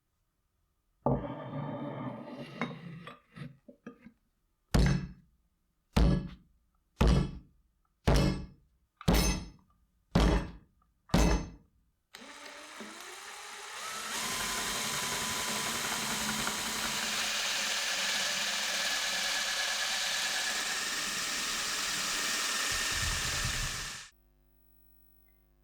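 Seven sharp blows about a second apart, each with a short ring, like hammer strikes on the work, followed by a power tool running steadily for about ten seconds and then cutting off suddenly.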